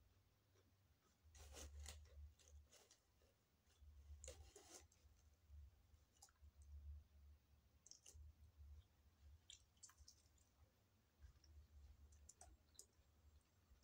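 Faint chewing of crispy fried chicken, with scattered mouth clicks and soft crunches at irregular moments.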